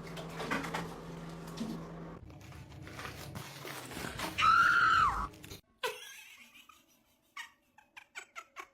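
A pet's single high cry, rising and then falling in pitch and lasting under a second. Near the end comes a run of quick taps, about three a second.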